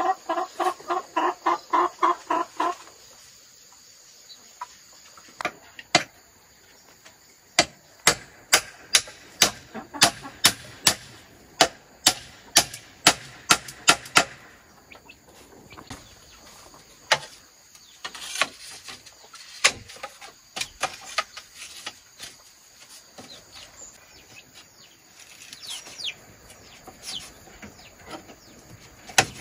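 Chickens clucking, with a rapid run of pitched clucks at the start. In the middle comes a run of sharp knocks, about two a second for some seven seconds, followed by scattered softer knocks.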